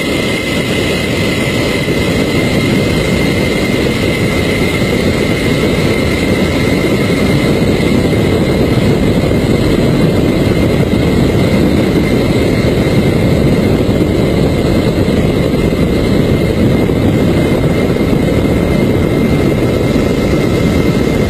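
Large jet airliner taking off: a loud, steady rush of engine noise and airflow with a thin high whine over it, heard from under the fuselage as the plane leaves the runway and climbs.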